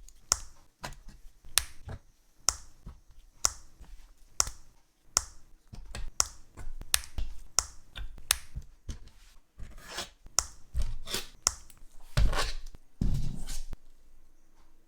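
Hard plastic model-kit parts clicking and snapping as they are handled and fitted together: about a dozen sharp clicks, then a few longer scraping rubs of plastic near the end, the loudest of them.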